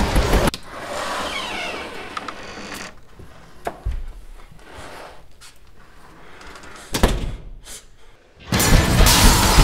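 A door thudding and a few sharp knocks in a quiet stretch, between loud crashing noise that cuts off suddenly about half a second in and starts again about a second before the end.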